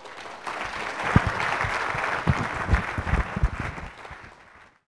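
Audience applauding: it builds over the first second, holds with a few dull low thumps mixed in, then thins out and cuts off abruptly near the end.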